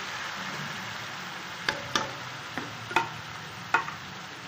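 A slotted metal spoon stirs boiled beef mince into onions and tomatoes frying in oil in a metal pot, over a steady light sizzle. In the second half the spoon strikes the side of the pot about five times with sharp clinks.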